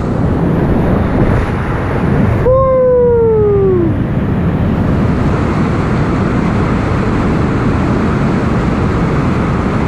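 Steady rush of whitewater and waterfalls around a kayak. About two and a half seconds in, the sound suddenly turns dull and one tone slides down in pitch for about a second and a half.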